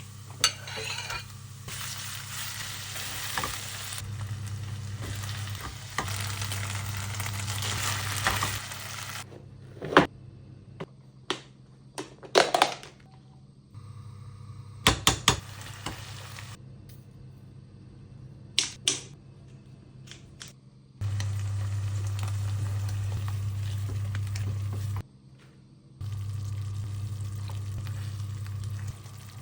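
Food sizzling in a hot frying pan for several seconds, followed by a string of sharp knocks and clinks of a utensil against the pan. Near the end a steady low hum starts and stops abruptly twice.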